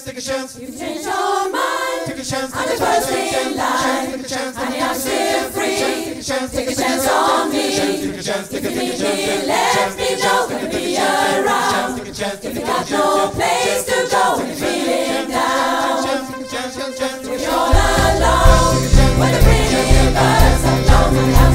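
Choir singing live on stage with very little bass beneath it. About eighteen seconds in, a deep bass line and a steady beat come in and the music gets louder.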